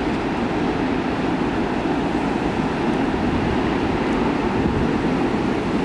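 Wind buffeting the camera microphone: a steady low noise that flickers in the bass.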